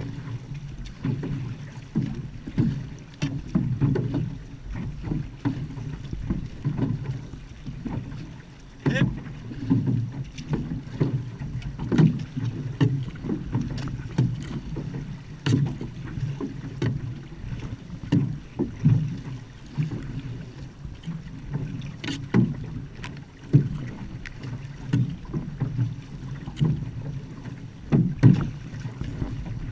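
Outrigger canoe (va'a) under way, paddles stroking the water in a steady rhythm of about one stroke a second, with wind buffeting the microphone.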